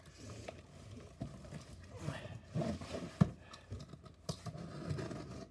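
Cardboard shipping box being handled and turned around on a wooden surface: cardboard scraping with irregular taps and knocks, the sharpest about three seconds in.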